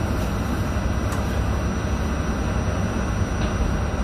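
R68A subway car running with a steady low rumble of motors and wheels, heard from inside the rear cab as the train pulls out of a station.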